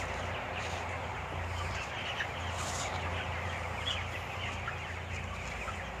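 A large flock of 27-day-old broiler chickens in a closed shed, many birds clucking and chirping at once in a continuous dense chatter over a steady low hum.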